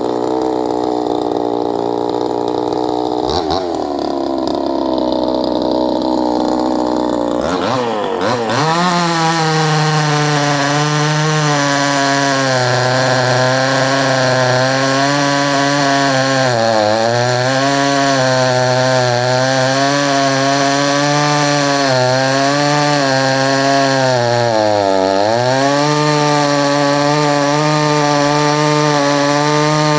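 62cc Chinese two-stroke chainsaw running at a lower speed, then opened to full throttle about eight seconds in and cutting through a log, its pitch sagging briefly twice under the load.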